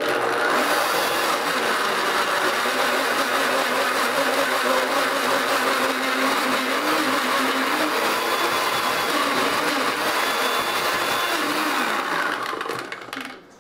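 Countertop blender running under load, chopping a thick mix of raw seafood and water into a chunky paste. It starts abruptly, runs steadily with a slightly wavering pitch, and winds down near the end.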